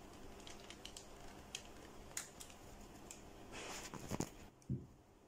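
Scattered light clicks and taps from handling a mixing bowl while thick cake batter is poured out of it, then a brief rustle and a soft knock near the end.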